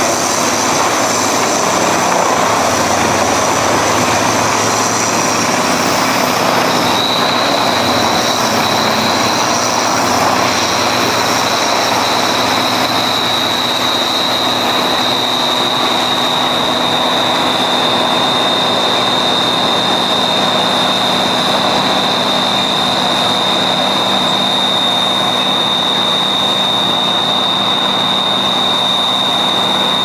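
Large whole-tree wood chipper running under load as a tree is fed into it: a loud, steady mechanical noise of engine and cutting drum. A high steady whine sets in about a quarter of the way through and holds.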